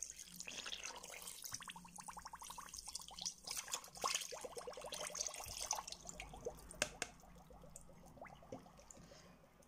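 Cold water poured from a bottle onto granulated sugar in an aluminium pressure-cooker pot, splashing and gurgling, then tailing off about seven seconds in as the pour ends.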